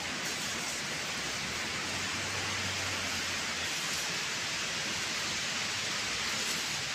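Steady, even hiss of outdoor background noise with no distinct events, and a faint low hum for a second or so in the middle.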